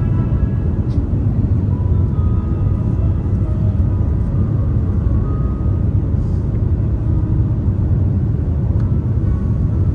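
Steady, even rumble of an Airbus A350-941 in flight, heard inside the passenger cabin: the noise of its Rolls-Royce Trent XWB engines and the airflow along the fuselage.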